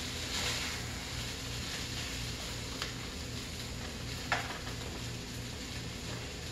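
Fried rice with peas and carrots sizzling in a sauté pan as it is stirred, with two light knocks of the spatula against the pan.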